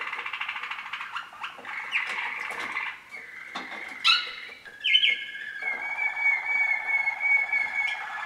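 Waterslager canaries, young birds of the year, singing: a run of rapid rolling trills and bubbling notes, broken by a few sharp loud notes about halfway through. This is followed by a long, even rolling tour held on one pitch that stops suddenly near the end.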